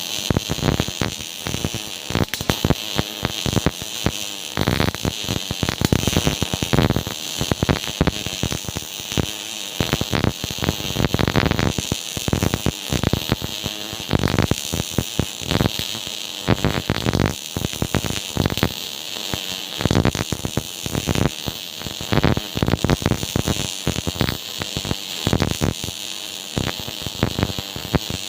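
MIG welding arc crackling in a dense, irregular run of rapid pops over a steady hiss.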